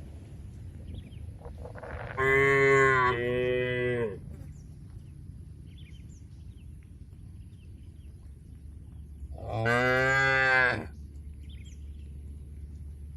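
Cattle mooing twice. The first moo lasts about two seconds and breaks in two, and a shorter moo of about a second follows some six seconds later.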